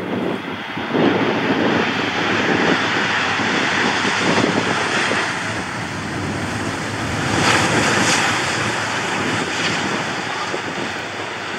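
Steady engine noise from a passenger airliner passing nearby, with wind buffeting the microphone.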